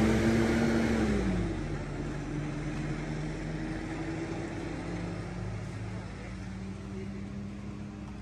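A bus engine pulling away and fading: its hum drops in pitch about a second in, then carries on at a lower steady pitch, growing fainter throughout.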